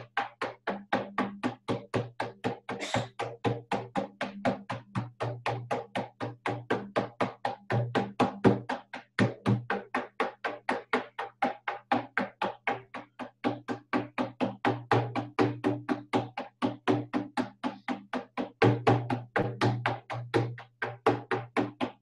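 Hide-headed frame drum beaten with a padded beater in a fast, steady beat of about four strokes a second, each stroke a low boom: shamanic journey drumming.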